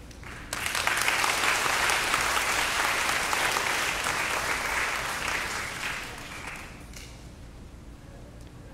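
Audience applauding. The clapping starts about half a second in and dies away after about six seconds.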